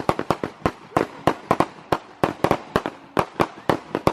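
Firecrackers going off in a rapid, irregular string of sharp cracks, several a second.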